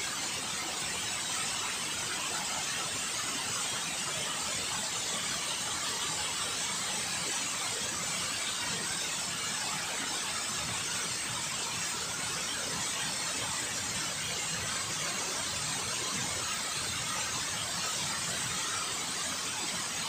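Steady rush of river water running over a small cascade of rapids, an even hiss that holds without a break.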